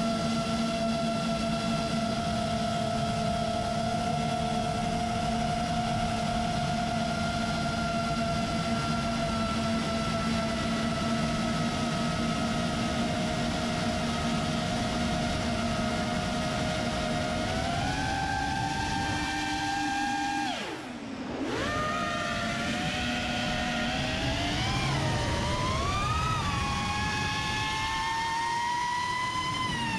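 FPV racing quadcopter's brushless motors and propellers whining at a steady cruising pitch. About two-thirds through, the pitch steps up, then drops sharply for a moment as the throttle comes off, and comes back wavering up and down with throttle changes. The pitch falls away at the very end, with wind rush on the onboard camera underneath.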